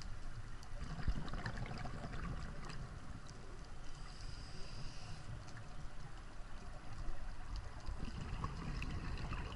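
Underwater sound of a scuba diver's breathing: a brief regulator hiss about four seconds in, and gurgling exhaled bubbles over a low rumble of water against the camera housing, with faint crackling.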